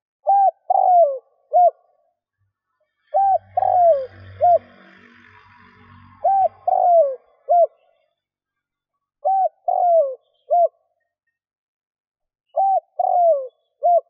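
Spotted dove cooing its three-note song, a short coo, a longer falling coo, then a short coo, repeated five times about every three seconds.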